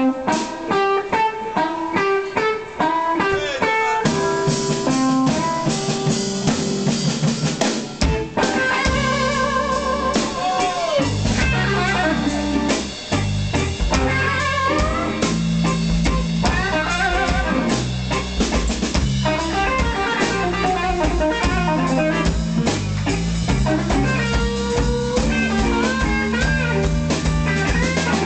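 Live blues band playing: a lead guitar line over sparse accompaniment, then bass guitar and drum kit come in fully about eight seconds in and the band plays on.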